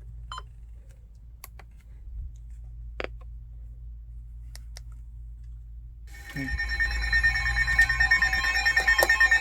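Low steady hum with a few faint clicks, then about six seconds in a loud electronic emergency alert tone starts: several high tones pulsing rapidly together. It is the alert signal that comes before a new weather warning is broadcast.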